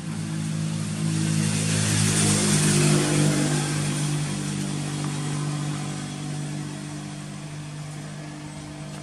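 A motor vehicle's engine passing by, its drone growing louder to a peak about three seconds in and then slowly fading away.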